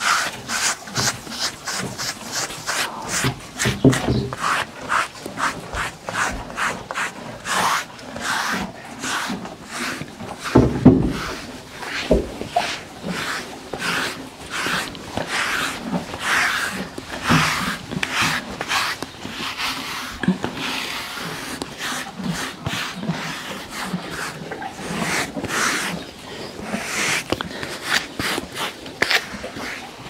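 A stiff grooming brush swishing over a draft horse's coat in quick repeated strokes, about three a second. A few heavy thumps break in, the loudest about a third of the way in.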